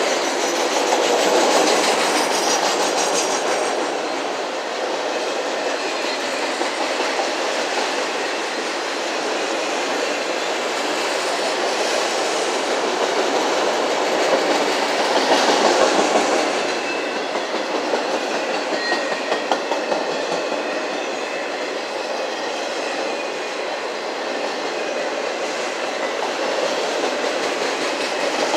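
Loaded autorack freight cars rolling past: a steady rumble and rattle of steel wheels on rail, with clickety-clack over the rail joints. It swells about two seconds in and again around the middle, with a run of sharp clicks a little after.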